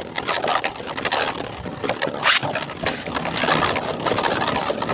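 Two 3D-printed plastic Beyblade spinning tops whirring and scraping against each other, with frequent clacks as they collide and one loud hit a little past two seconds in.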